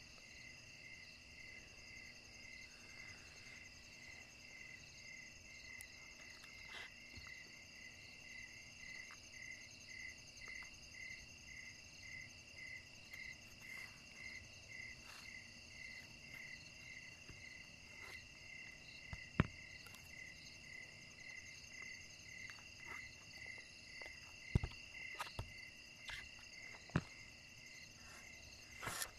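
Night chorus of crickets: steady high trills, with one pulsing chirp about twice a second. A few sharp clicks stand out in the second half.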